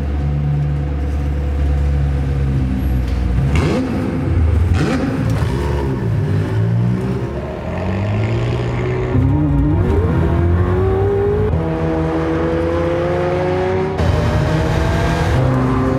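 McLaren 765LT's twin-turbo V8 idling, then revved up and down in a few blips. It then accelerates hard with its pitch climbing, and an upshift comes near the end, after which the pitch climbs again.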